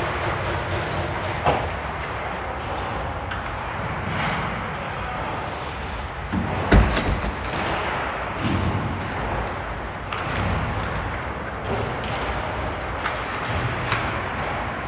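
Ice hockey game sound in an arena: a steady wash of skates and sticks on the ice with scattered knocks, and one loud slam against the boards about seven seconds in.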